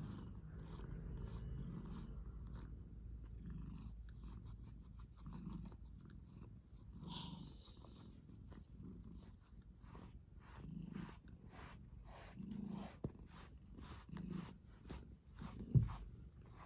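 Pet cat purring in slow swells, about one every one and a half to two seconds, with many faint ticks from its kneading and one louder thump near the end.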